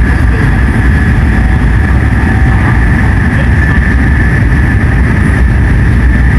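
N700S Shinkansen train running at speed, heard inside the passenger cabin: a loud, steady low rumble with a steady high hum above it.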